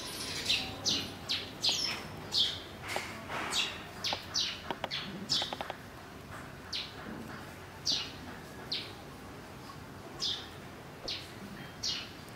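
Birds chirping: a string of short, high chirps that each slide downward, coming quickly in the first half and more sparsely later.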